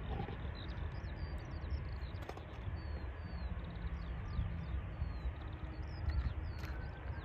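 Small birds chirping repeatedly in short, quick calls, several a second, over a steady low rumble.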